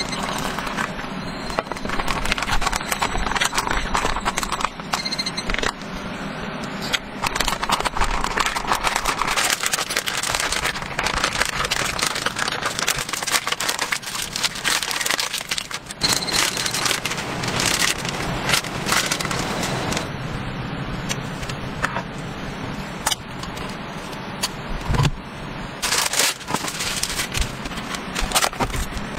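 Crinkling and rustling of a plastic instant-rice pouch being handled, with water poured into it at the start; near the end, plastic cling film is rustled as it is spread out.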